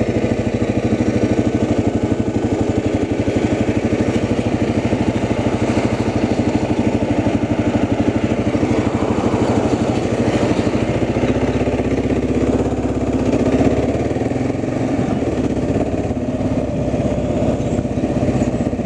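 A small engine running steadily at a constant speed, with a fast, even beat of firing pulses.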